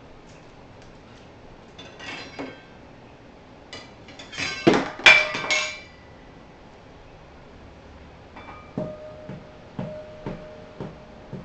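A small metal bowl clattering loudly and ringing about halfway through, then tapped several times with a toy spoon near the end, each tap leaving a short ringing tone.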